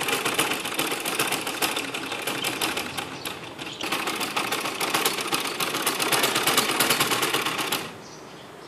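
Household sewing machine stitching a seam at speed: a fast, even clatter of needle strokes. It eases off briefly about three and a half seconds in, then picks up again and stops near the end.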